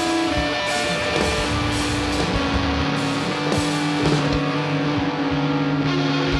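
A rock band playing live: electric guitars holding long notes over bass and drums, with cymbal crashes.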